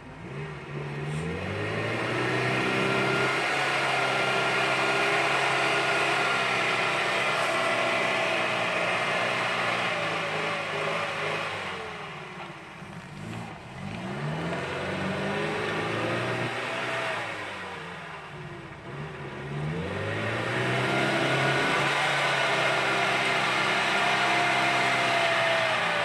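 UAZ off-roader's engine revving hard as it pushes through a deep muddy rut, rising three times and falling back briefly in between.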